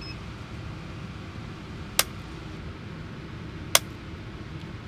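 Two sharp metallic clicks about a second and a half apart: the Beretta CX4 Storm carbine's trigger breaking and dropping the hammer on an unloaded gun as a digital trigger-pull gauge draws it back, over a steady background hum. A faint short beep sounds at the very start.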